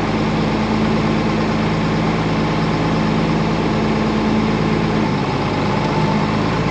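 Tractor engine running steadily while pulling a manure spreader across a field, a low, even drone with a slight change in its low hum about five seconds in.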